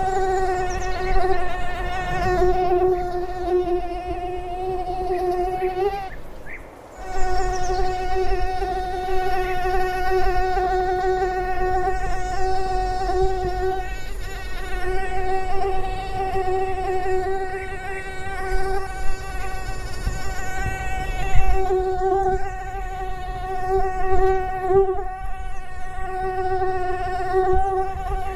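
Mosquito in flight: the steady, high-pitched whine of its wingbeat, wavering slightly in pitch and loudness. It cuts out for about a second roughly six seconds in, then comes back.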